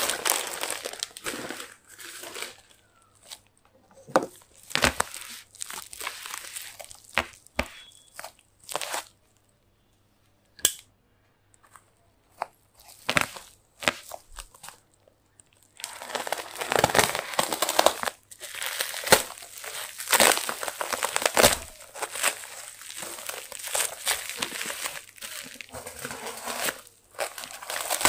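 Plastic stretch film and bubble wrap of a parcel crinkling and rustling as it is handled and cut open, with some tearing. Bursts of rustling at first, a quieter spell with a few isolated clicks in the middle, then steady crinkling through the second half.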